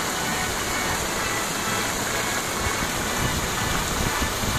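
Steady splashing rush of a fountain: an aerated foam-column jet and a ring of arching jets pouring into the basin, with music playing underneath.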